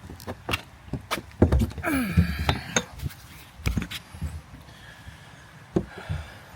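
Knocks and thumps of a person hauling himself up a climb, scrambling against hard surfaces. A short sound falling in pitch comes about two seconds in.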